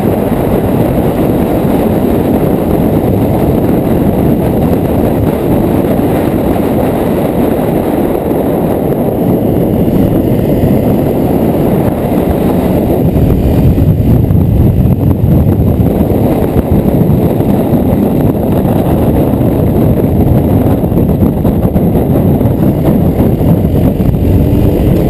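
Honda CRF250L single-cylinder motorcycle being ridden hard, its engine running under heavy wind roar on a helmet-mounted camera. The roar grows louder about halfway through.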